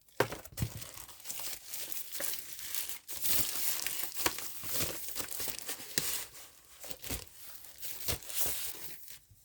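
Packaging being crinkled and torn as a keyboard is unwrapped: a long run of rustling and crackling with many small clicks and rips.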